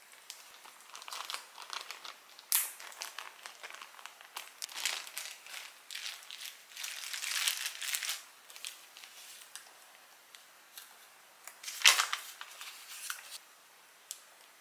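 Crinkling and rustling in irregular bursts, with the loudest sharp crackle about twelve seconds in.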